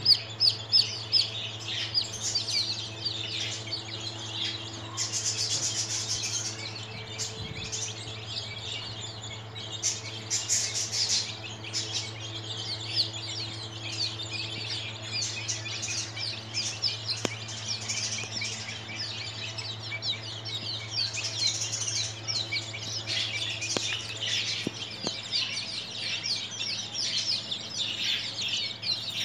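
A flock of young chicks peeping continuously, many short, falling high-pitched peeps overlapping, over a steady low hum.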